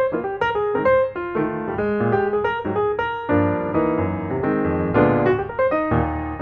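Solo piano music: a melody of single notes played over lower chords.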